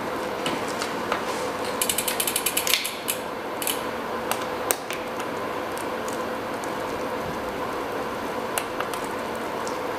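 Mountain bike chain and drivetrain being handled while a 10-speed quick link is fitted: a fast run of about ten sharp clicks about two seconds in, then scattered single clicks.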